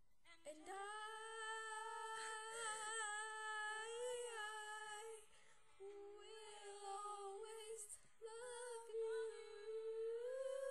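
Girls humming a slow, sad melody without accompaniment, holding long wavering notes, with a quieter dip about halfway through.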